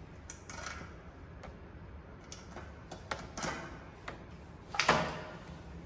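Scattered small clicks and taps of screws and the drill bit being handled against a black metal door frame while screws are set, with one louder knock about five seconds in.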